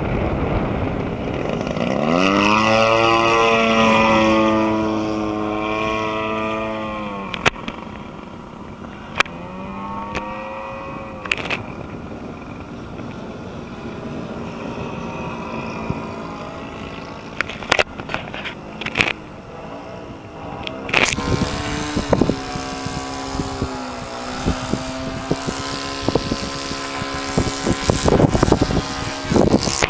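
Edge 540 model aircraft's 55cc two-stroke gasoline engine and propeller on a landing approach. The throttle is opened about two seconds in and pulled back about seven seconds in, then the engine runs low and quieter. It is opened up again just after twenty seconds, with a brief dip a few seconds later. Short sharp clicks are scattered throughout.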